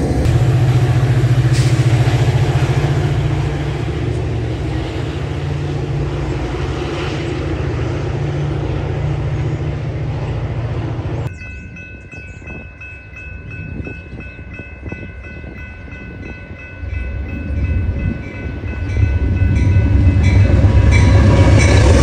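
Trains passing a grade crossing: a diesel train rumbles past close by, then after an abrupt cut, steady ringing tones from the crossing signals are heard over a quieter background. In the last few seconds an Amtrak GE P42DC Genesis diesel locomotive approaches and rolls past with a loud, deep rumble.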